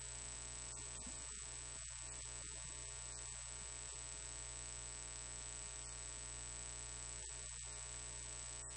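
A steady high-pitched electronic whine over a low hum and hiss, with no voice heard. It is recording noise standing in for the missing speech.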